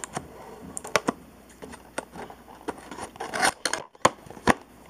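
Scissors cutting into a thin cardboard toy box: a string of sharp snips and scrapes, with a flurry about three and a half seconds in and one more sharp snip near the end.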